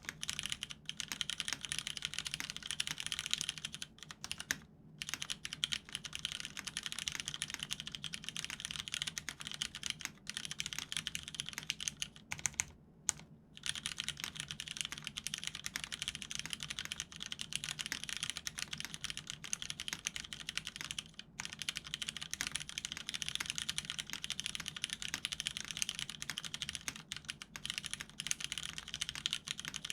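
Continuous fast typing on a mechanical keyboard with lubed vintage Cherry MX Brown tactile switches on an aluminium plate, capped with Cherry dye-sub keycaps. Dense key clacks with a few brief pauses.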